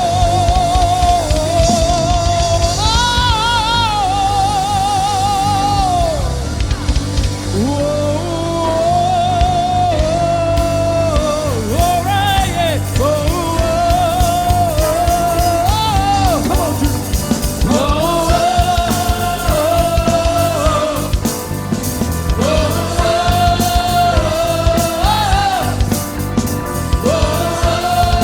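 A church praise team performing a worship song: a lead singer holds long notes, some with a wide vibrato, over a band with drums and bass.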